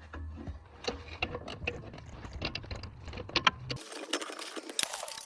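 Irregular metallic clicks and clinks of hand tools over a low hum; the hum stops abruptly a little under four seconds in while the clicking goes on.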